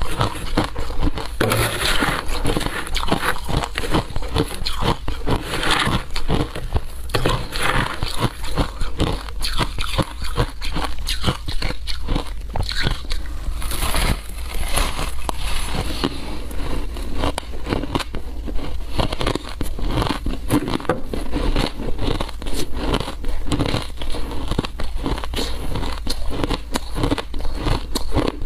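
Mouthfuls of shaved ice crunched and chewed close to a lapel microphone: a dense, irregular run of crisp crackling crunches.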